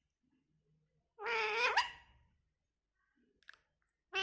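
A parrot gives one short, loud call about a second in, ending in an upward glide. A couple of faint clicks follow near the end.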